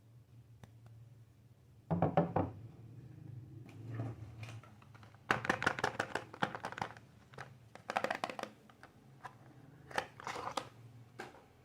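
Soap packaging being unwrapped by hand, the wrapper crinkling and tearing in several short bursts of crackling.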